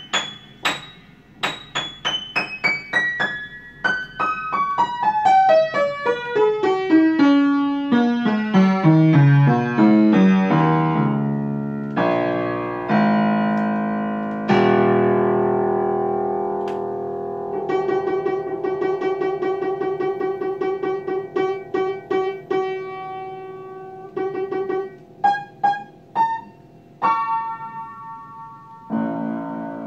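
Upright piano played solo. A long run of notes falls step by step from high to low over the first ten seconds or so, then come held chords, a rapidly repeated figure in the middle register, and separate high chords near the end.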